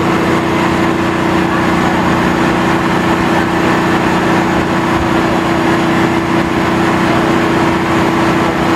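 Truck-mounted boom crane's diesel engine running steadily at a constant speed, a steady hum with no change in pitch, while the crane holds a suspended load.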